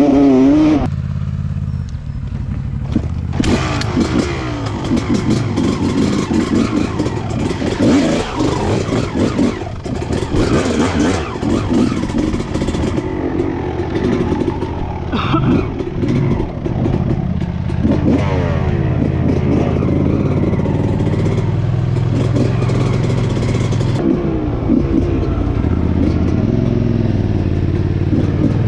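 Honda CR250R's two-stroke single-cylinder engine revving up and down as the dirt bike is ridden over rough trail, with the bike clattering over the rough ground. At times it drops to a steady idle.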